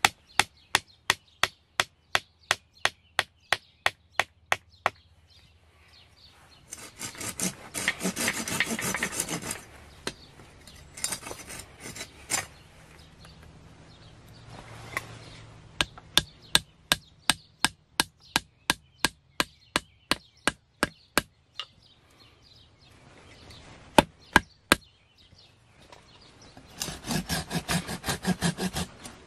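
A wooden peg being hammered into a hole to pin two green branches together: sharp wooden knocks about three a second in two long runs. Between them and near the end, rasping bursts of a small saw cutting the peg off flush with the branch.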